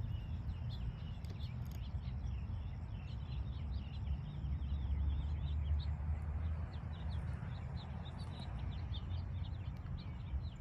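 Many small birds chirping in quick, short calls, over a steady low rumble.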